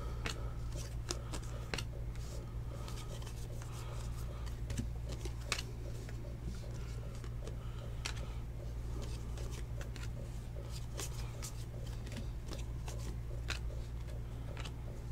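Trading cards being flipped through by hand and laid down, with irregular sharp flicks and slides of card stock, over a steady low hum.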